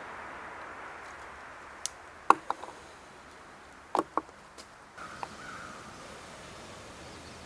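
Small stick fire crackling: a handful of sharp pops about two and four seconds in over a steady low hiss.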